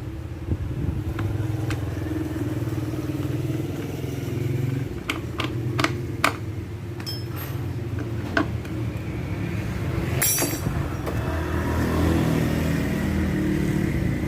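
Small motorcycle engine, the EGO scooter's, running steadily, its note growing stronger near the end. A few sharp clicks come about five seconds in, and a short rattle about ten seconds in.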